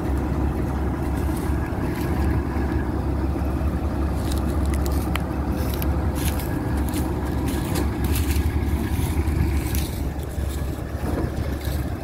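NSG 930 combine harvester's engine running steadily with a deep, even rumble. Scattered ticks and scrapes come over it from about four seconds in until near the end.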